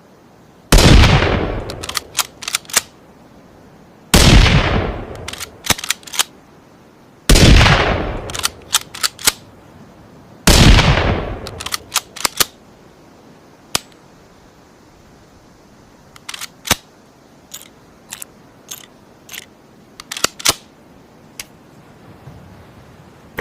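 Rifle sound effect modelled on the Ruger American bolt-action rifle: four loud shots about three seconds apart, each ringing out, each followed by a quick series of sharp metallic clicks as the bolt is worked. In the second half comes a looser string of quieter clicks and clacks of handling, with no more shots.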